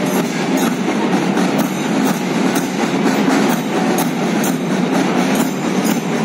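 Marching drums beating a steady parade rhythm, about two beats a second, over a dense, steady din.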